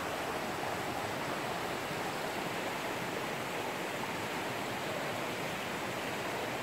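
Steady rush of river water spilling over small cascades and rocks.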